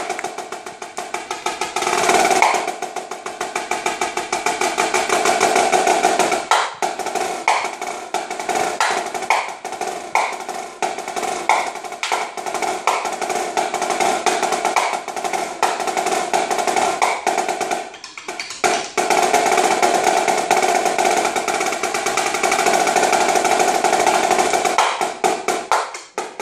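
Marching snare drum played solo with sticks: fast, dense rolls and stick patterns broken by sharp accented strokes, with a short break about 18 seconds in.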